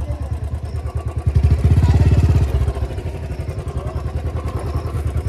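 Motorcycle engine running at low speed with an even pulsing beat, given a burst of throttle a little over a second in that lasts about a second before it settles back.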